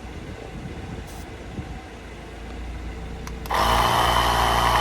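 Portable electric tire inflator switching on abruptly about three and a half seconds in and running steadily, pumping air into a temporary spare tire. Before it starts there is only a low wind rumble.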